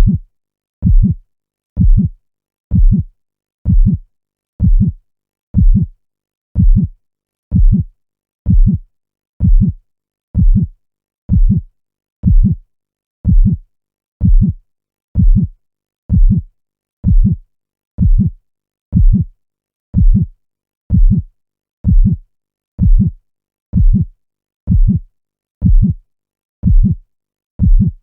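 Heartbeat, beating steadily at about sixty beats a minute. Each beat is a short, deep, low thud with silence between the beats.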